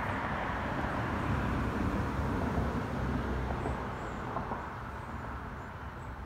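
Steady outdoor background noise with a low rumble, growing fainter about four seconds in, with faint short high chirps in the second half.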